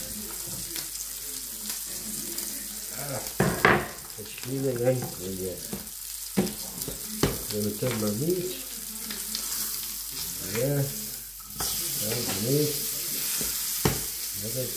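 A cutlet frying in butter in a stainless steel pan, with a steady sizzle throughout. A few sharp clicks and knocks break in along the way.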